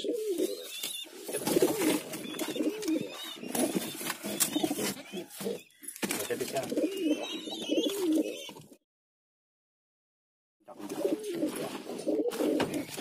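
Several domestic pigeons cooing, a continuous overlapping chorus of low wavering coos. The sound drops out entirely for about two seconds, two-thirds of the way through, then the cooing resumes.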